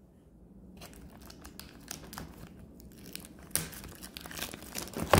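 Plastic shrink wrap on a cardboard hockey card box crinkling and tearing as it is pulled off, in irregular crackles that get louder in the second half.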